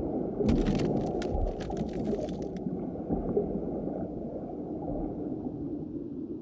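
Low, rumbling underwater ambience, with a cluster of sharp crackling clicks over the first two and a half seconds that then stop, leaving only the rumble, which slowly fades.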